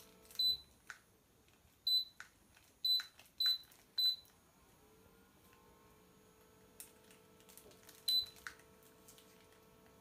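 Cool mist humidifier's control panel beeping as its buttons are pressed and its display setting changes: five short high beeps in the first four seconds and one more about eight seconds in, with small clicks between them, over a faint steady hum.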